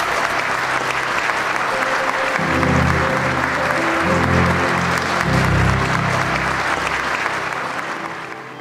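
Church congregation and wedding party applauding, the clapping fading near the end. Music with low, sustained notes comes in about two seconds in, under the applause.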